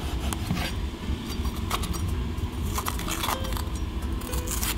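Chef's knife cutting through a green bell pepper and knocking on a wooden cutting board: an irregular string of crisp clicks and knocks, the sharpest near the end, over a low steady hum.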